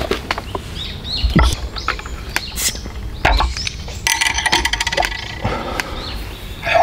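Small birds chirping over and over, with a few sharp knocks and light clinks as a glass beer bottle and pint glass are handled on a wooden table.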